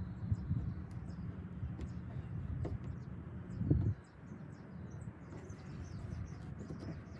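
Birds chirping faintly over a low rumble that cuts off suddenly about four seconds in.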